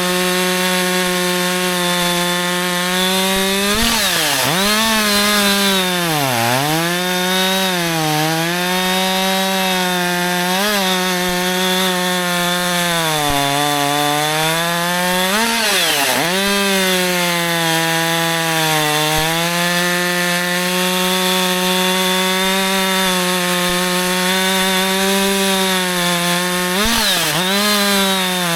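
Husqvarna 564 XP 62cc two-stroke chainsaw running at full throttle while cutting wood: a steady high engine note that sags in pitch under load and recovers several times, most deeply about four seconds in, about midway and near the end.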